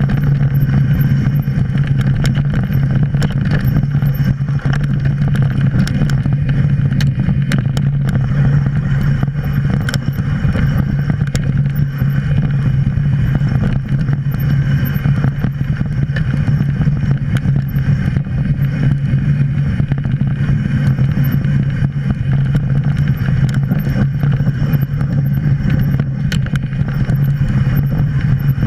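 Mountain bike riding down a dirt singletrack: a steady low hum with frequent short rattles and knocks from the bike over the rough trail.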